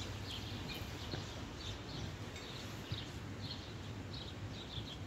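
Small birds chirping, short high chirps repeating about three times a second, over a steady low rumble of background noise.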